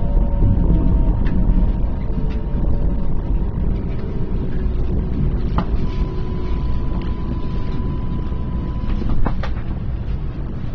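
Electric train running, heard from inside the passenger car: a steady low rumble with a few sharp knocks from the wheels over the track. A motor whine falls slowly in pitch as the train slows, and a thin steady whistle sounds for a few seconds in the second half.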